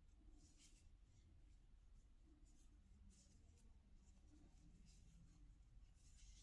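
Very faint, soft scratchy swishes of yarn being pulled through crochet stitches and over the crochet hook and fingers, coming several times at irregular intervals over near silence.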